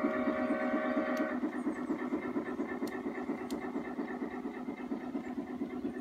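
Sound unit of a running G-scale model steam locomotive: a chime steam whistle of several tones held until about a second in, then cut off, over a rapid, steady pulsing that continues throughout. Two light clicks come near the middle.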